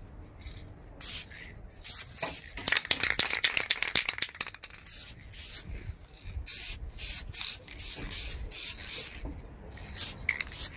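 Aerosol spray-paint can (Duplicolor Perfect Match) hissing in a run of short spray passes, laying down a light coat of base colour. The spraying is loudest from about two and a half to four seconds in.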